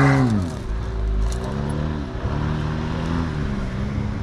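Jeep Wrangler Rubicon's engine revving up and down while spinning donuts in loose sand. The revs fall away sharply at the start, then rise and fall several times.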